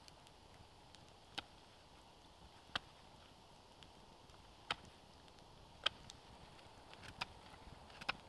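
Campfire crackling faintly: a handful of sharp, irregularly spaced pops from the burning wood over a low hiss.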